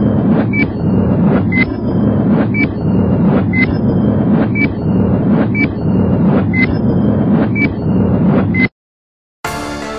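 A steady low rumble with a short high beep about once a second, each beep with a small click. It cuts off suddenly near the end, and music begins just after.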